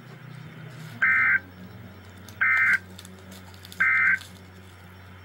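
Emergency Alert System end-of-message data bursts: three short, identical warbling digital tone bursts about 1.4 s apart, signalling the end of the alert. A steady low hum runs underneath.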